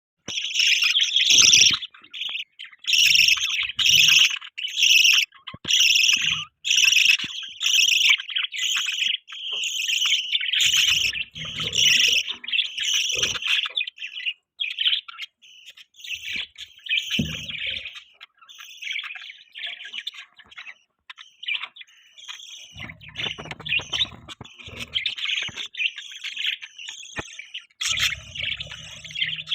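Budgies chirping: loud, short chirps repeated about twice a second for the first half, then softer, busier chatter.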